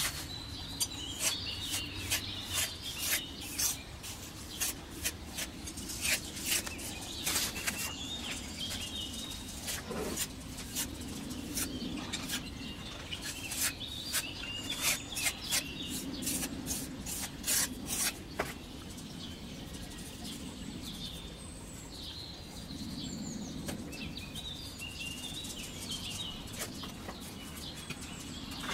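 Metal spatula scraping and tapping on wet sand-and-cement mortar in many short, irregular strokes as the top of a concrete planter is smoothed. Birds chirp on and off in the background.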